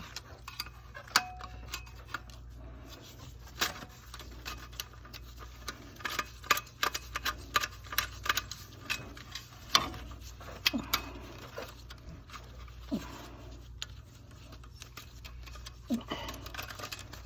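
Irregular small clicks, taps and light scrapes of hand tools and wire terminals as wires are disconnected from an aquastat relay box, over a steady low hum.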